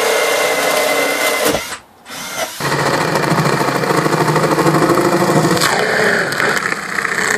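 Power drill boring a hole up through the RV's cabinet ceiling and roof: a run of about two seconds, a short stop, then a steady run of about five seconds as the bit breaks through the roof.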